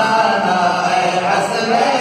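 A man singing a naat, an Urdu devotional song in praise of the Prophet, into a microphone, holding long wavering notes.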